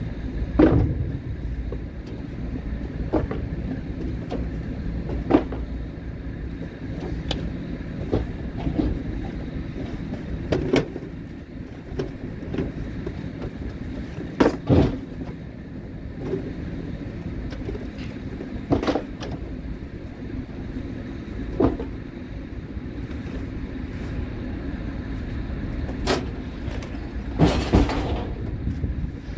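A vehicle driving: a steady low rumble with scattered sharp knocks and rattles, a louder knock about halfway through and a brief noisy burst near the end.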